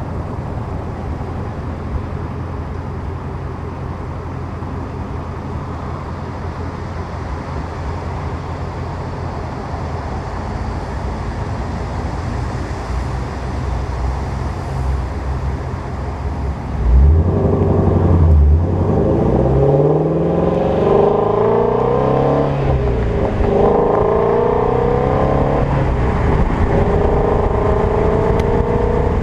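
Ford Mustang Shelby GT350's 5.2-litre flat-plane-crank V8 exhaust, first cruising at a steady low drone under wind noise. A little over halfway through it gets suddenly louder as the car accelerates hard, the revs climbing and dropping several times through gear changes, then pulling steadily with slowly rising revs near the end.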